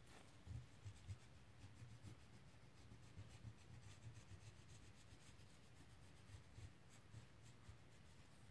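Wax crayon scribbling on a sheet of paper: faint, quick back-and-forth strokes, many in a row.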